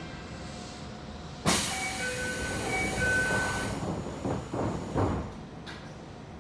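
Sudden loud hiss of compressed air aboard a Toei 5300 series subway car standing in a station, lasting about two seconds with a few short high beeps over it, followed by a few low thumps.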